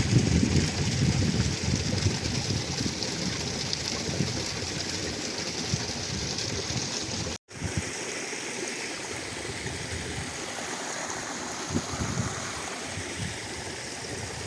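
Mountain stream water flowing in a steady rush. It cuts out suddenly about halfway through and then carries on a little quieter.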